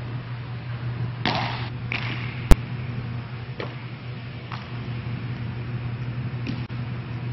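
Steady low hum with one sharp, loud crack of a baseball impact about two and a half seconds in. Around it are a brief swish and a few softer taps.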